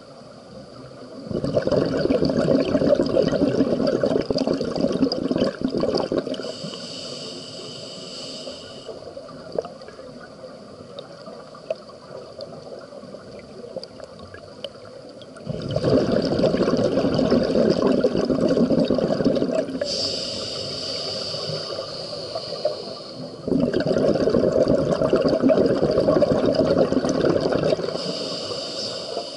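Underwater scuba breathing through a regulator, three breaths: each time a long bubbling rush of exhaled air, then a short hissing inhale.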